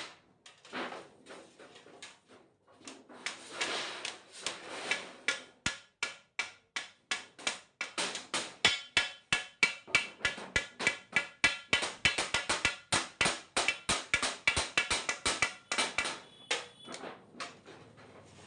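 Repeated hammer blows, several a second, sharp and rhythmic, hitting something that rings with a metallic tone through the middle stretch. The strikes start sparse and quiet, then come fast and loud before thinning out near the end.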